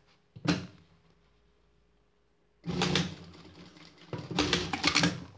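Siruba industrial straight-stitch sewing machine stitching in short bursts: a brief stroke about half a second in, a longer run just before three seconds, and another rapid run of stitches near the end. It is sewing a pleat through a fabric-covered bikini cup.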